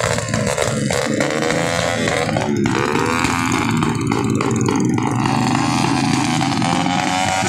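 Motorcycle engine revved hard again and again, its pitch rising and falling, the engine pushed as if to break it.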